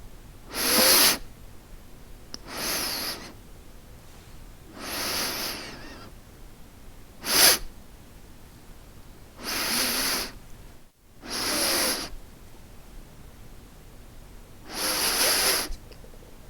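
A human nose sniffing: seven separate sniffs spaced a second or two apart, with one short, sharp sniff in the middle. The sniffs are airy with a faint whistle.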